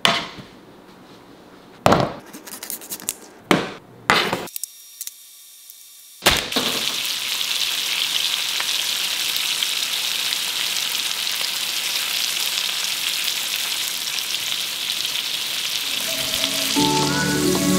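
Fish fillets sizzling steadily in hot oil in a frying pan, after a few short knocks and a brief silent gap. Music comes in near the end.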